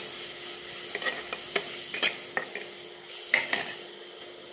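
Metal spatula scraping and clinking against a metal kadhai while stirring onions frying in oil, with a steady sizzle underneath. The scrapes come irregularly, several over the few seconds, the sharpest about three seconds in.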